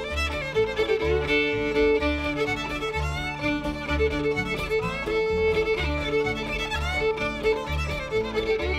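Bluegrass band playing a fast fiddle tune, with the fiddle leading over strummed acoustic guitar and upright bass keeping a steady beat.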